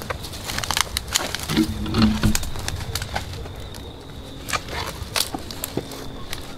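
Footsteps through dry undergrowth: leaves crunching and twigs snapping in irregular sharp clicks. A brief, low, steady-pitched sound comes about two seconds in.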